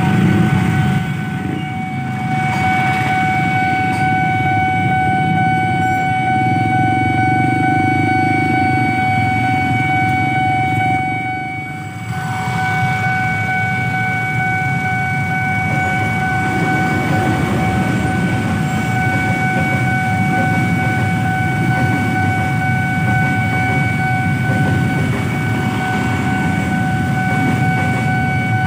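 Railway level-crossing warning signal sounding continuously as a steady high electronic tone, over the low rumble of idling motorbikes and a passing train.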